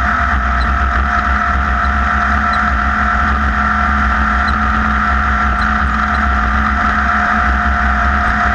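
Class 1600 off-road race buggy's air-cooled Volkswagen 1600 engine running hard at a steady speed. It is loud and unbroken, a low rumble with a steady whine over it.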